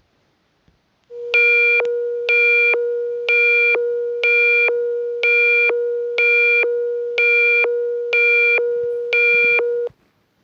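Synthesized emergency-alert attention tone announcing an emergency broadcast message: a steady low tone with nine higher, buzzy beeps over it, about one a second, then it stops.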